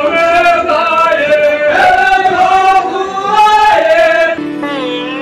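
Voices singing a chant-like melody with long, sliding held notes. About four seconds in it cuts off abruptly and steady instrumental music with held notes takes over.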